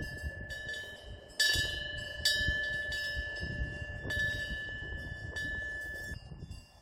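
Korean temple eaves bell (pungyeong), a small bronze bell hanging from the eaves, rung by the wind. Its clapper strikes at uneven intervals, about half a dozen times, each strike leaving one clear, high, lingering ring. A low rush of wind rises and falls underneath, and the ringing dies away near the end.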